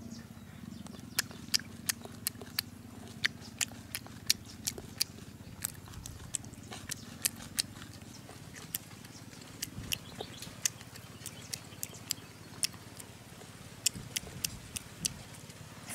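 Close-up chewing of cooked wasp larvae and pupae: sharp, irregular crunches and clicks, two or three a second, over a faint low hum.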